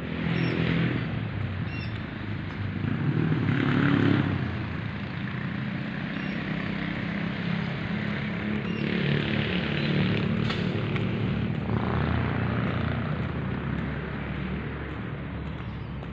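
Road traffic: a steady engine hum with several motor vehicles passing, swelling about half a second in, around four seconds and again around ten and twelve seconds.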